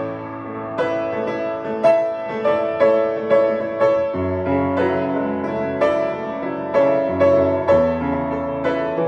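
Solo piano playing a slow, gentle piece: single notes struck about once or twice a second over held bass notes, with the bass changing about four seconds in and again near the end.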